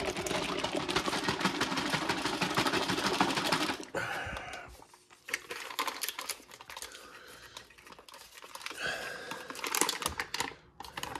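Plastic ration drink pouch being shaken to mix powdered drink with water: a dense rattling slosh for about four seconds, then quieter crinkling and handling of the pouch, with another short burst of shaking near the end.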